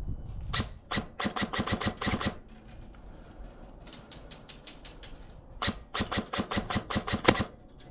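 Airsoft guns firing in three rapid strings of sharp cracks, the middle string fainter.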